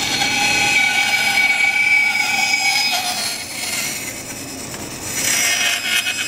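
Bandsaw blade cutting a curve through a wooden board: a loud, steady high whine with several held tones. It eases off about midway and rises again near the end as the board is pushed back into the blade.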